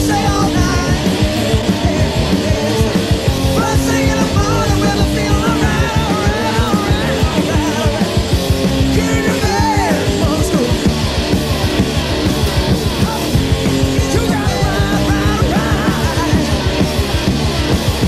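Loud live rock band playing, with electric guitar lines bending up and down in pitch over bass and drums.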